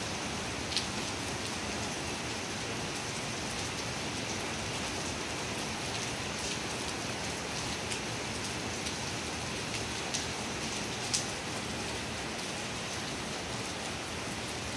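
Steady rain falling, an even hiss throughout, with a few sharp ticks of heavier drops standing out, the loudest about eleven seconds in.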